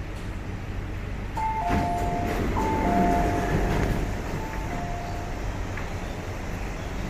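Two-tone door chime on a metro train, a high note followed by a lower one, sounding three times as the sliding doors open with a clunk. The train's low steady hum runs underneath.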